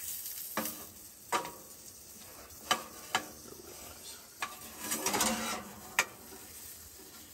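Pepper jack sausage and bacon sizzling in a frying pan while a wooden spatula stirs and scrapes them, with several sharp knocks of the spatula against the pan and a longer scrape about five seconds in.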